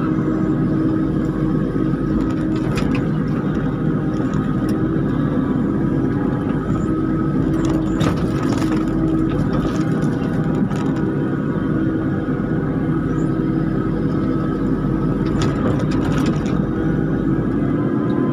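Kubota KX91-3 mini excavator's diesel engine running steadily as its grapple grabs and shifts rubberwood logs. The logs knock and clatter against each other a few times: about three seconds in, around eight to nine seconds, and again near the end.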